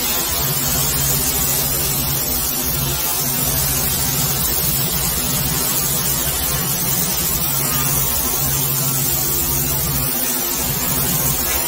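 Pressure washer running: a steady motor hum under the hiss of the water jet blasting dirt off concrete patio slabs.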